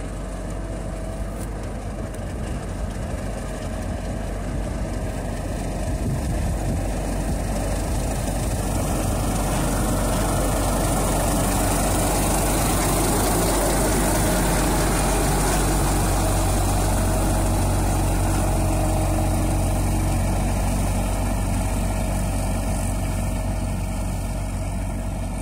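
Self-propelled swather cutting spring oilseed rape, its diesel engine and header running steadily. It grows louder as the machine comes up close around the middle, then eases off as it moves away.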